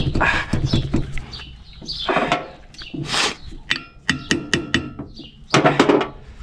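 Hammer striking the steel of a tractor-mounted rotary tiller while it is being unhitched, with a quick run of about half a dozen ringing metallic taps around four seconds in. Louder knocks and scrapes of metal come around the taps, the loudest near the end.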